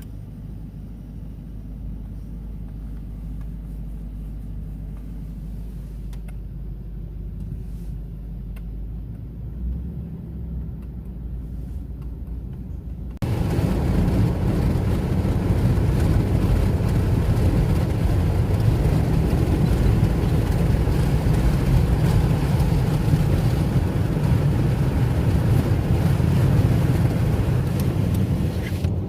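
Steady road-vehicle noise, heard as if riding inside: a low rumble that abruptly turns louder and hissier about thirteen seconds in, then holds steady.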